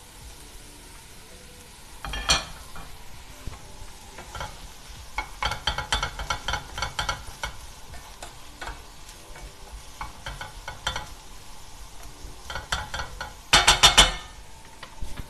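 Sliced onions frying and sizzling in a pan, stirred with a wooden spatula that scrapes and knocks against the pan in bursts of clicks, the loudest burst near the end.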